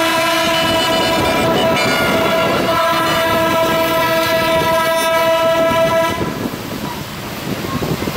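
Semi-truck air horns sounding in one long, steady blast that cuts off about six seconds in, leaving street traffic noise.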